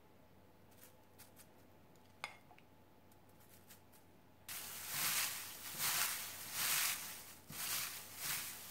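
Dried green laver (parae) being kneaded and tossed with seasoning sauce by a hand in a disposable plastic glove: a crisp rustling crinkle in repeated pushes, about one a second, starting abruptly about halfway through. Before that, only a few faint clicks.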